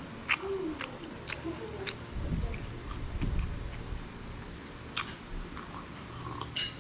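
A person chewing food during a meal, with sharp clicks every half second or so and a brief low rumble about two seconds in.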